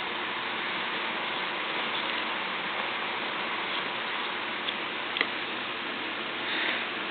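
Steady hiss with two faint, sharp clicks about five seconds in.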